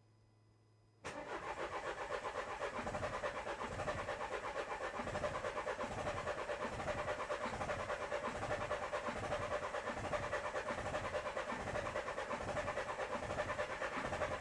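Starter motor cranking the Renault 1.5 dCi K9K diesel engine for about thirteen seconds, starting about a second in. The cranking has an even rhythmic beat from the compression strokes, and the engine sounds like it is trying to fire but does not start. This is a no-start being tested with the air mass sensor unplugged.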